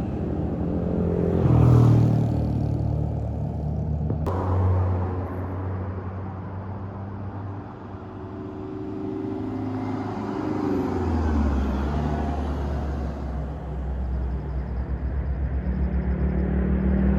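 Road traffic passing by: engines and tyres, with a sharp click about four seconds in. Near the end a heavy engine's low pulsing rumble grows steadily louder as it comes closer.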